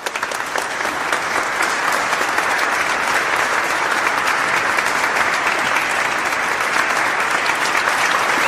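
Applause sound effect: a dense, steady clapping crowd that swells up over about the first second and then holds.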